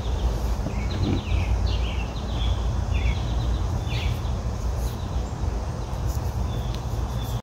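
A low, fluctuating rumble of outdoor noise, with a small songbird chirping quick runs of short falling notes again and again in the background.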